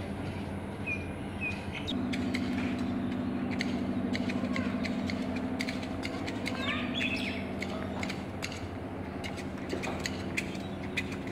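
A steady low mechanical hum that grows louder for several seconds in the middle, with scattered sharp clicks and a few short bird chirps.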